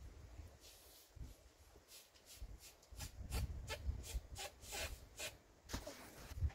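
Short, irregular rubbing squeaks from hands working a rubber party balloon, repeated a dozen or so times, faint.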